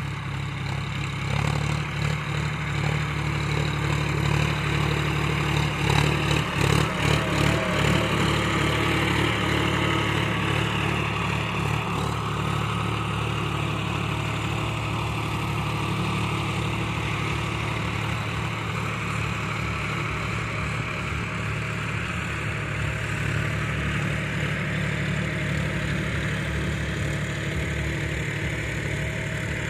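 John Deere 5050D tractor's three-cylinder diesel engine running steadily under load while pulling a laser land leveler through dry soil. It is louder and uneven for a few seconds early on as the tractor comes close, then settles to a steady drone.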